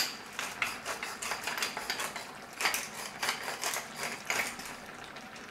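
Wooden pepper mill twisted back and forth, grinding peppercorns: an uneven run of quick crunching clicks.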